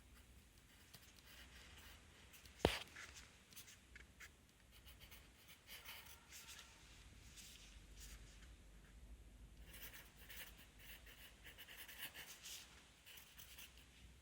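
Pencil writing on paper: faint, irregular scratching strokes that grow busier in the second half, with one sharp click about two and a half seconds in.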